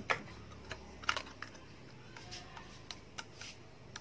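Scattered light clicks and taps of a plastic yogurt cup being handled and opened over a plastic mixing bowl, about eight irregular clicks in four seconds.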